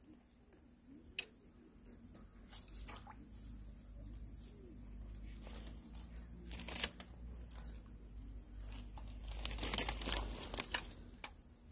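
Rustling and crinkling close to the microphone with scattered clicks, loudest about ten seconds in, over a low rumble.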